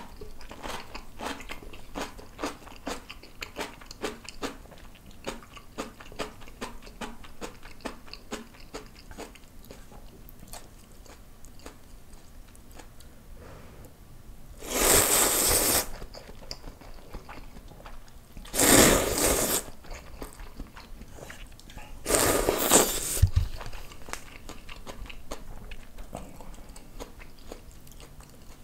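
Close-miked eating: a mouthful of kimchi is chewed with many small crisp crunches, then three loud slurps of instant ramyun noodles, each about a second long, follow in the second half, with softer chewing between and after.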